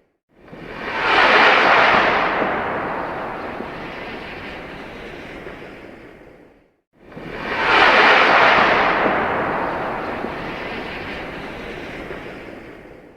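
Rocket launch sound effect, heard twice: each time a rushing roar swells up over about a second, then fades away over several seconds and cuts to silence.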